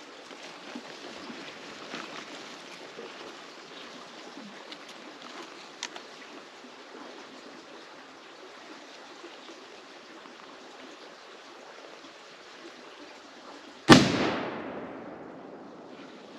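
A single loud gunshot about fourteen seconds in, ringing out with an echo that fades over about two seconds: the finishing shot on a wounded buck. Before it, the steady rush of creek water with a few faint clicks.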